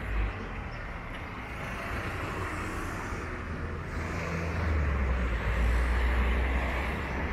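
Street traffic: a car driving past, its engine and tyre noise building from about four seconds in and loudest near the end.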